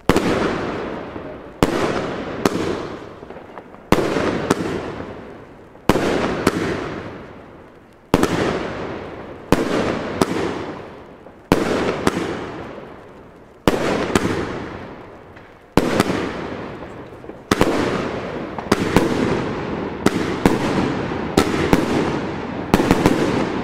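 GAOO Memories fireworks battery firing salute (Salut) shots: sharp bangs, often in close pairs, about every two seconds, each trailing off in a long rumble and crackle. The bangs come faster and closer together near the end.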